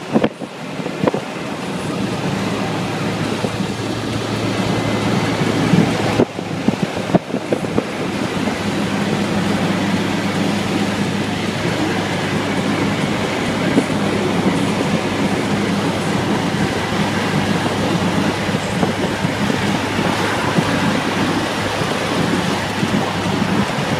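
Steady road and engine drone of a car driving at speed, heard from inside the cabin, with a low even hum under the tyre noise. A few brief knocks come around six to seven seconds in.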